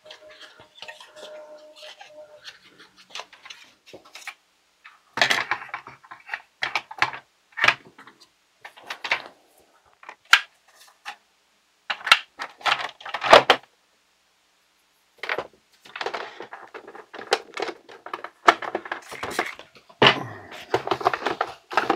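Hard plastic parts of a toy pinball machine being handled and wiped clean: irregular knocks and clatters of plastic on plastic and on the bench, with stretches of rubbing, busiest near the end.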